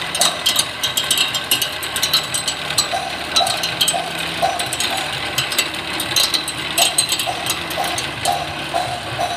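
A cylinder mower's reel spinning on a cylinder-grinding machine during sharpening, with a dense, rapid metallic clicking and rattling. From about three seconds in, a pulse repeats roughly twice a second.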